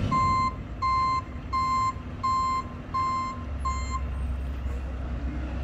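A vehicle's reversing alarm beeping at a steady pace, six even beeps a little under one a second, stopping about four seconds in. A low engine rumble sets in just before the beeping stops.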